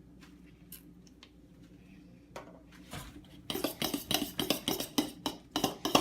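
A utensil rapidly knocking and scraping against a bucket as the glue mixture is stirred. It starts about three and a half seconds in, after a few faint clicks, and goes on at several strokes a second.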